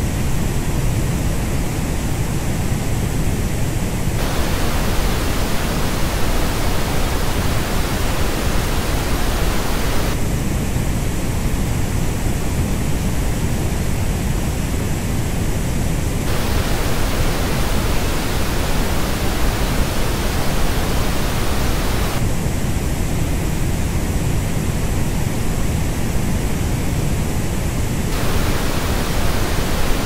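Steady pink noise switching about every six seconds between the flat reference and the same noise as reproduced by Sony WH-CH720N wireless headphones. The headphone version, heard at the start, from about 10 to 16 seconds and from about 22 to 28 seconds, is coloured, with less energy in the upper midrange and the treble.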